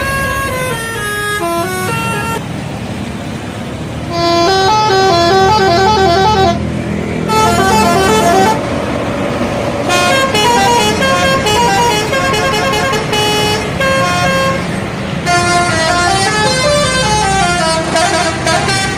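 Indonesian bus 'telolet' musical air horn playing quick, trilling melodies of rapidly alternating and descending notes in several phrases over a low rumble. The horn gets much louder about four seconds in.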